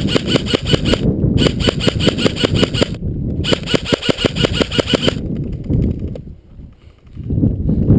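Airsoft electric rifle firing full-auto in three long bursts of about a second and a half each, about a dozen shots a second. Rustling movement noise follows near the end.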